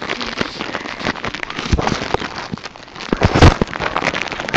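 Dense crackling and rustling handling noise from a handheld camera being moved about, with fingers rubbing near the microphone, and a louder knock about three and a half seconds in.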